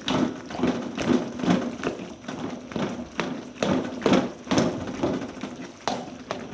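A spatula stirring and mashing food in a pan or wok, knocking and scraping against the metal in a steady rhythm of about two strokes a second.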